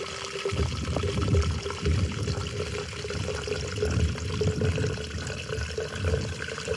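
Water trickling steadily from a squeeze-filter pouch into a plastic bottle. The pitch of the filling bottle rises slowly as it fills.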